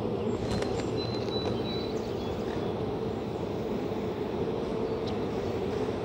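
Steady hum of many honeybees over an open hive, with a few light clicks of a hive tool against the wooden frames about half a second to two seconds in.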